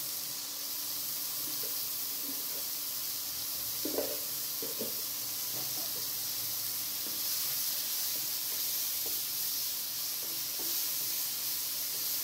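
Button mushrooms sizzling in oil in a nonstick wok, a steady high hiss, with a few light knocks about four to five seconds in.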